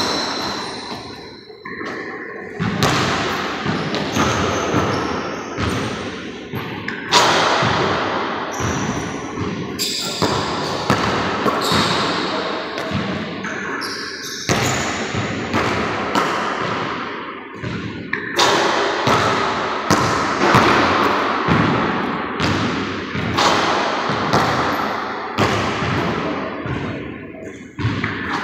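A basketball bouncing on a hardwood gym floor and banking off the backboard and rim, one shot after another. Each impact rings out with a long echo in the large empty gym.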